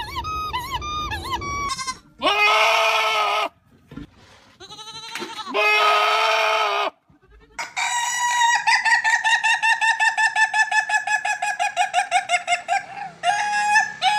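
A series of different animal calls: a run of short rising-and-falling chirps, two loud held calls of about a second and a half each, then a long, rapidly pulsing warbling call lasting about five seconds.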